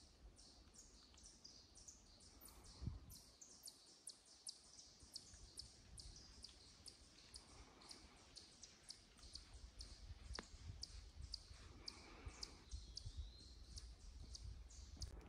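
Quiet forest ambience: a faint, steady series of short high chirps, about three a second, over a low rumble on the microphone, with one soft thump about three seconds in.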